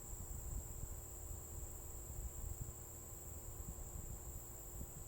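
Insects, likely crickets, trilling as one steady, unbroken high tone, over a faint, uneven low rumble.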